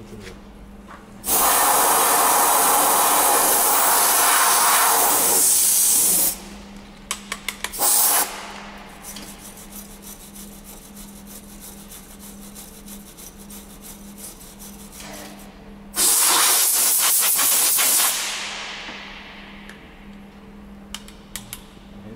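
MIG welder welding thin car-body steel in bursts: a long crackling, frying run of about five seconds, a few short tack crackles around eight seconds in, and a second run of about two seconds that fades out, over a steady low hum. It is rust-repair welding on a car's underbody.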